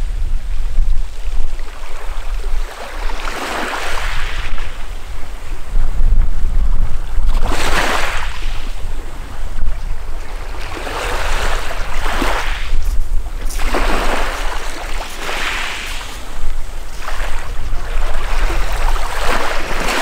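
Small, gentle sea waves breaking and washing up over a pebble shore, each wash swelling and fading every two to four seconds, over a steady low rumble.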